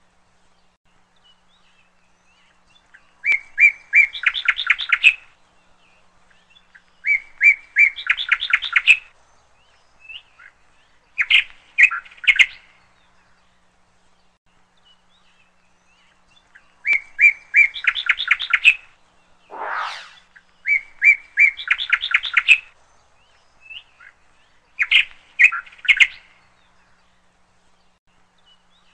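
A bird singing: short phrases of repeated chirps, each speeding into a quick trill, coming every few seconds with pauses between. A single brief sweeping sound comes about twenty seconds in.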